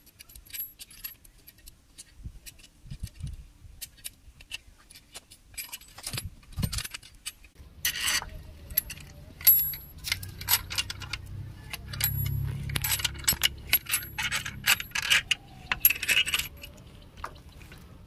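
Steel scissor jack and its crank rod clicking and clinking in irregular metallic taps as they are handled and turned into place under the car. A low steady rumble joins about halfway through.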